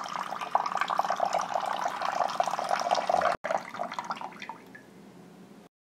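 Water poured from a drinking glass into a glass bowl of flour and eggs: a steady splashing stream that breaks off briefly a little over three seconds in, then trickles and fades away.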